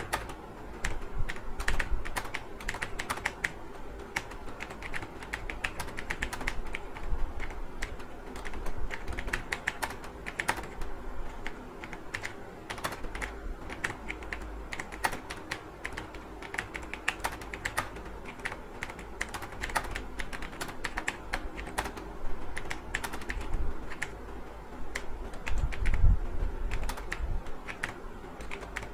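Rapid, continuous typing on a computer keyboard: a dense, uneven stream of key clicks. About 26 seconds in there is a single louder, dull thump.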